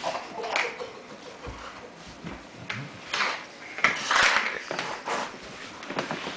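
Irregular scuffing, rustling and light knocking, like handling noise, with the loudest cluster about four seconds in.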